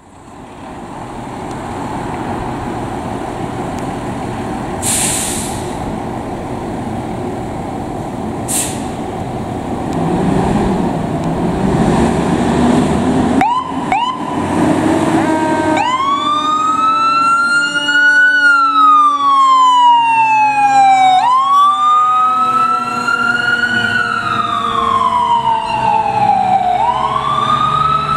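Fire engine's diesel engine running steadily, with two short hisses, then two quick siren chirps and, from about halfway through, the siren in a slow wail, rising and falling about every five and a half seconds as the pumper responds to a call.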